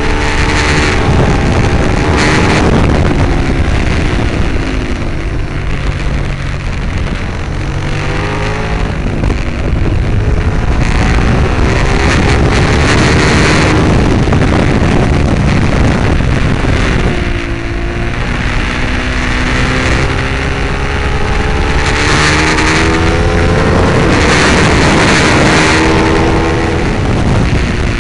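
Ducati 848 L-twin engine at full race pace. Its pitch climbs and drops back at each gearchange, and partway through it falls away as the bike slows for a corner, then climbs again. Wind rushes over the microphone throughout.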